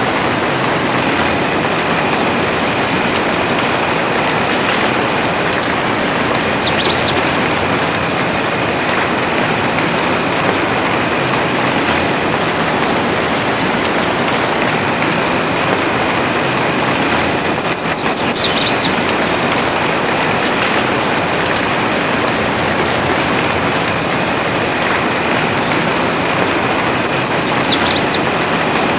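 Soft rain falling in a forest: a steady hiss of rain under a constant high-pitched drone. A short call falling in pitch is heard three times, the second one loudest.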